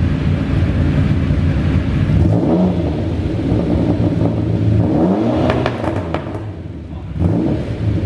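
TVR engine running through its newly fitted back-box exhaust and blipped up twice, with a few sharp pops as the revs fall about six seconds in.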